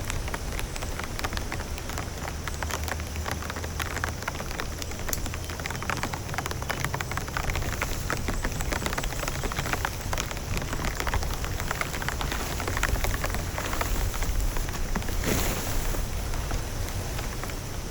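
Heavy rain falling steadily, with a dense patter of drops striking a surface and a brief swell a little before the end.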